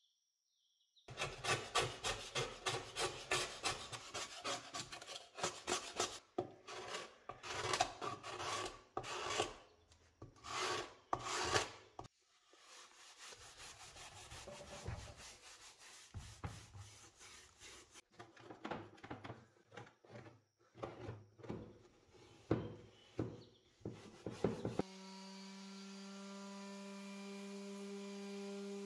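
Fast back-and-forth hand-scrubbing strokes on the bare, wet wood of an old wooden speaker cabinet, in runs broken by short pauses. About 25 seconds in, an Erbauer electric detail sander takes over with a steady motor hum.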